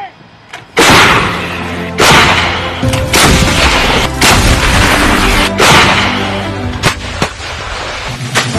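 Repeated firing of ATMOS 155 mm self-propelled howitzers: about half a dozen loud booms, roughly one a second, starting about a second in, each trailing off. Background music plays underneath.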